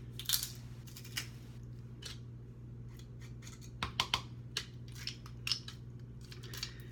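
Kitchen utensils being handled: scattered sharp clicks and brief scrapes of hard plastic and metal tools, a quick pair of clicks about four seconds in, over a steady low hum.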